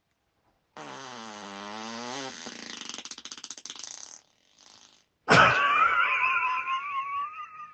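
A run of farts. About a second in, a low, pitched one lasts a second and a half and breaks into a rapid flutter. About five seconds in, a sudden loud blast turns into a high, wavering squeal.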